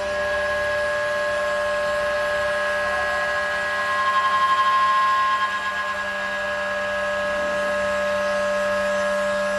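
CNC door lock drilling machine running, its spindle motors giving a steady whine of several held tones. It swells louder for about a second and a half, about four seconds in.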